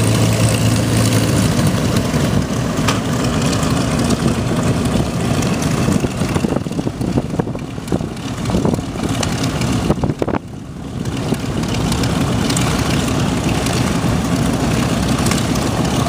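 P-51D Mustang's Packard Merlin V12 engine running at taxi power, the propeller turning as the fighter rolls along the ramp. The sound dips briefly about ten seconds in, then comes back up.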